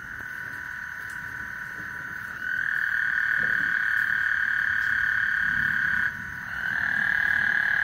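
A chorus of many frogs calling together at night, a dense, steady high trill. It is quieter for the first couple of seconds, then swells. It drops off briefly about six seconds in and builds back up.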